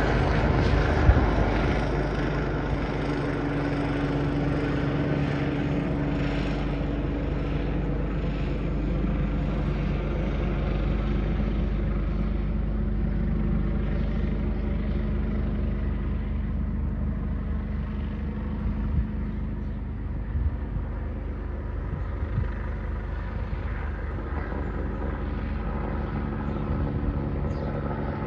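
Helicopter circling overhead: a steady drone of rotor and engine that eases off a little in the later part.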